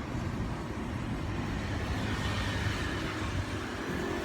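Steady rumble of passing motor traffic, with a faint rising and falling whine a couple of seconds in as a vehicle goes by.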